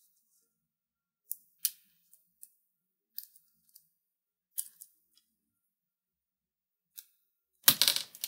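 Small, sharp plastic clicks, about ten spread out, as the ribbon-cable connector latch under a laptop palm rest is worked loose, followed by a louder, longer burst of handling noise near the end.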